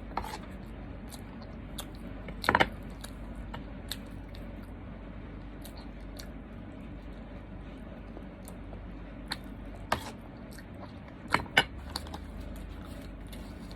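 Eating at a table: a few sharp clicks and clinks of utensils and food containers, with a loud cluster a couple of seconds in and a few more later, over a steady low hum.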